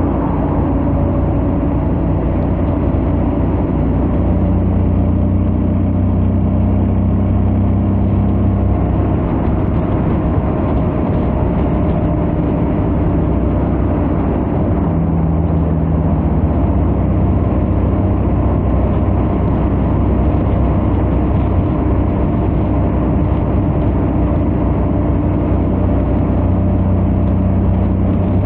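Honda X-ADV 750's parallel-twin engine and stock exhaust running steadily at highway cruising speed, a continuous drone with only slight changes in pitch.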